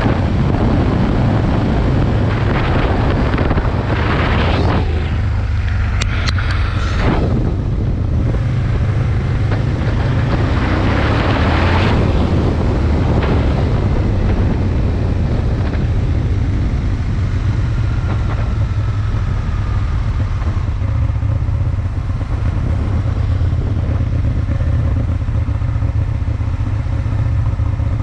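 Aprilia Tuono 1000's V-twin engine running with a steady low rumble, with several swells of rushing noise over it in the first half.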